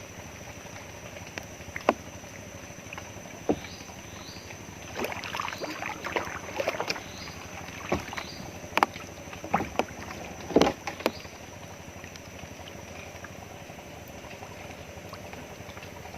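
A scatter of sharp knocks and clicks over a steady hiss with a thin high whine; the knocks are busiest between about five and eleven seconds in.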